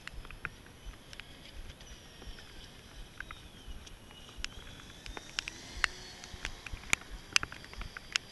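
Faint high whine of a small RC speedboat's brushless electric motor, sliding up and down in pitch as the throttle changes, under irregular sharp clicks and taps close to the microphone.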